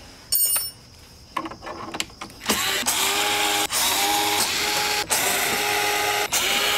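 Cordless drill/driver running in a series of short bursts from about two and a half seconds in, each whining up to speed, as it backs out the screws holding the electric unicycle's shell shut.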